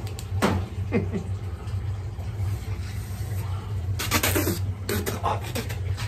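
A man blowing through a steam boiler's pressuretrol pigtail (siphon loop) to check that it is clear, in a few short breathy bursts, the longest about four seconds in, over a steady low hum.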